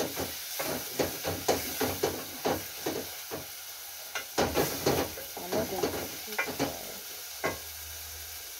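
Wooden spoon stirring chopped tomatoes and onions in a small stainless steel pot, with quick scraping knocks against the pot a few times a second over a steady sizzle of frying. The stirring stops near the end.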